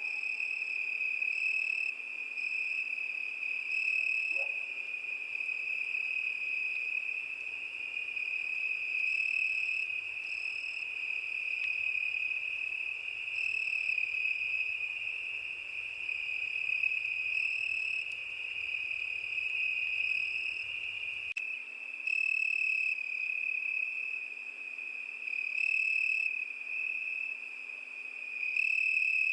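Crickets singing: one steady high trill that does not pause, with shorter, higher chirps repeating every second or two over it.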